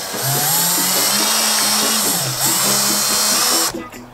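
Cordless drill running steadily as it bores a small hole through a plastic pipe end cap, then stopping suddenly near the end.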